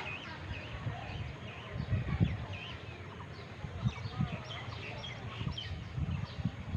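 Small birds chirping and twittering over and over, with irregular low rumbling thumps underneath, the loudest about two seconds in.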